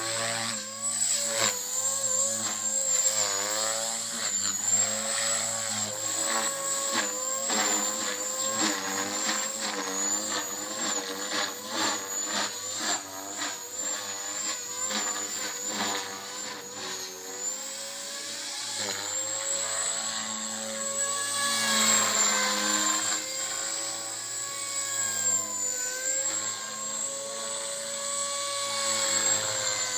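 Blade 450X electric RC helicopter flying aerobatics: its motor and rotor sound rise and fall in pitch as the head is loaded and unloaded, over a high thin whine. Through the middle there is a fast, rhythmic chop from the blades.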